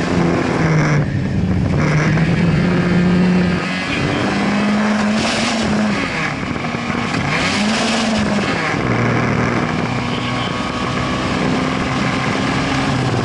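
Fiat Cinquecento rally car's engine at stage pace, heard from inside the cabin. The revs climb and fall again and again through gear changes and lifts, over steady road and tyre noise.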